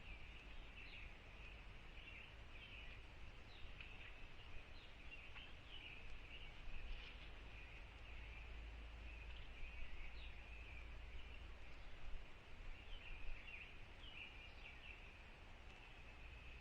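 Faint, busy bird chirping: many short chirps following one another without a break, over a low steady rumble.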